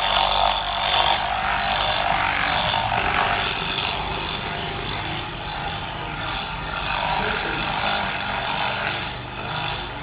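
Handheld electric massager's motor running with a steady buzz as it is pressed and moved over a person's shoulders.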